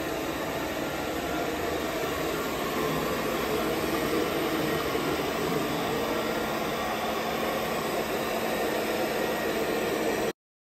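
CYBERDYNE CL02 cleaning robot running, a steady motor and suction noise from its vacuum cleaning. It cuts off suddenly near the end.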